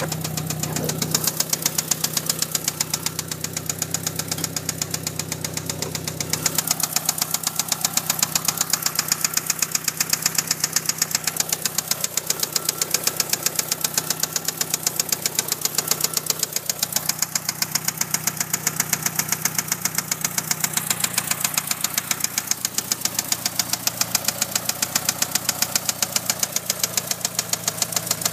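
1997 Mitsubishi Eclipse GST's turbocharged four-cylinder engine idling with a rapid, even knocking or ticking, louder from about six seconds in. The cause of the tick is unknown to the owner.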